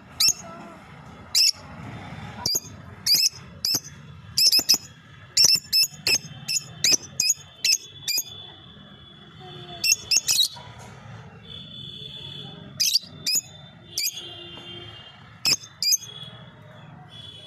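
Lovebirds chirping: short, sharp, high-pitched calls at irregular intervals, sometimes several in a second, over a low steady hum.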